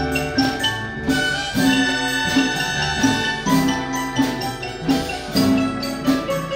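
Chinese orchestra playing a lively instrumental piece with a steady beat. Bowed cellos and double basses are under dizi bamboo flutes and plucked strings, with crisp note attacks every half second or so.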